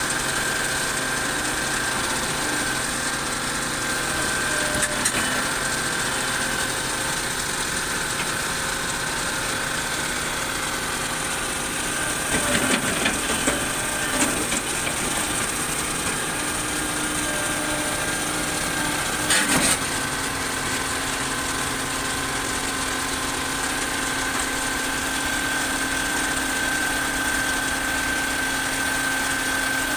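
Excavator engine running steadily with a constant whine. There is a cluster of short clanks about twelve to fourteen seconds in and one more sharp clank just before twenty seconds, after which the engine note drops slightly.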